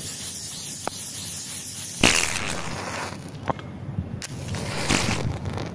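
Aerosol spray can hissing for about the first two and a half seconds, with a fresh burst about two seconds in, followed by a few clicks and scrapes of a matchbox being handled.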